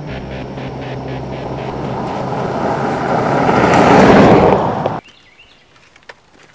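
A vehicle speeding down a dirt road and past, the noise of its engine and tyres growing louder, loudest about four seconds in, then cut off suddenly. Music with a beat fades out in the first second.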